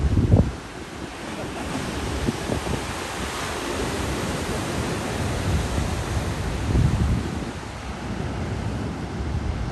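Ocean surf breaking and washing in a steady hiss, with wind buffeting the microphone in low rumbles, hardest right at the start and again about seven seconds in.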